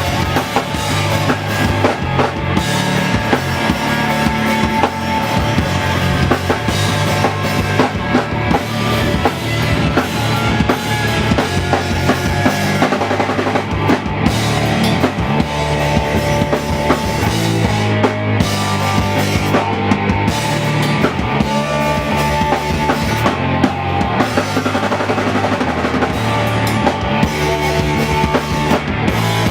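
Live rock band playing an instrumental passage: a drum kit driving a steady beat under bass and electric guitar.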